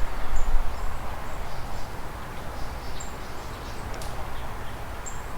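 A few short, high bird chirps, about three, over a steady outdoor noise. A low wind rumble sits on the microphone in the first second or so.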